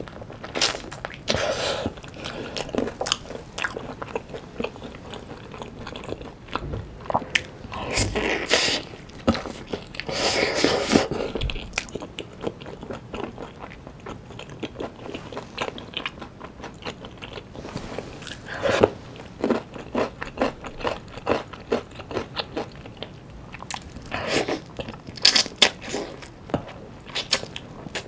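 Close-miked biting and chewing of sauce-coated Korean fried chicken (yangnyeom chicken): irregular crisp crunches of the fried coating between quieter chewing, with louder runs of crunching about a third of the way in and again near the end.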